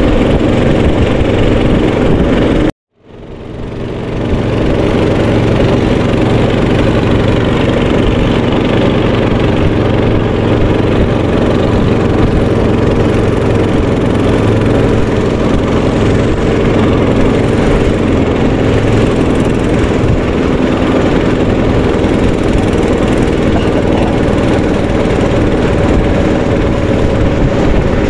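Boat engine running steadily and loudly, with a brief dropout about three seconds in before it fades back up.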